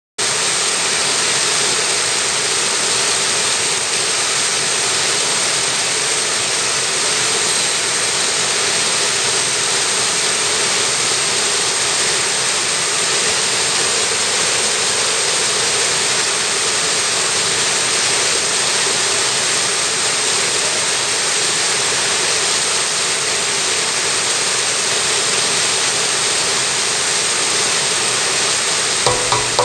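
Mountain stream rushing over small cascades and boulders into a whitewater pool: a loud, steady roar of water that cuts in abruptly at the very start. A few brief knocks come near the end.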